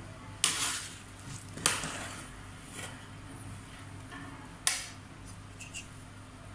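Three sharp clanks of a metal spoon against a steel cooking pot, spaced a second or more apart.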